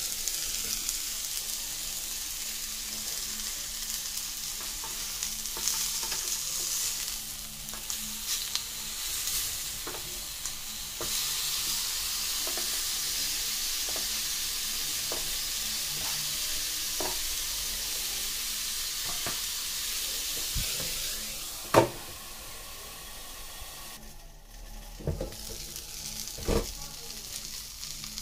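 Onion slices sizzling on a hot electric contact grill: a steady high hiss that drops off about three-quarters of the way through. A few sharp clicks and knocks of utensils on the grill follow near the end.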